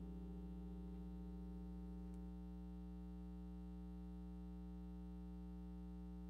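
A steady low electrical hum with a few faint steady tones above it; one of the higher tones stops about two seconds in.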